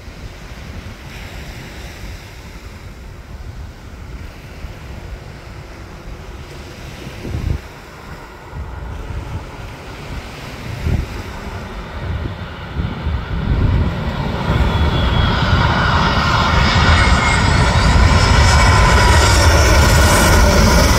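Boeing 737 MAX 8 airliner's CFM LEAP-1B jet engines on final approach, a distant rumble that builds steadily over the last several seconds into loud jet noise with a whine as the aircraft passes low overhead. Gusts of wind buffet the microphone in the first half.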